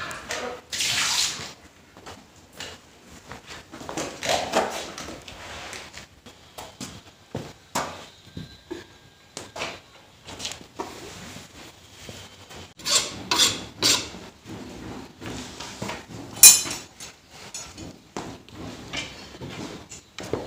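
Scattered clinks, knocks and scrapes of a metal wok and utensils being handled at irregular moments, with one sharp clank late on the loudest.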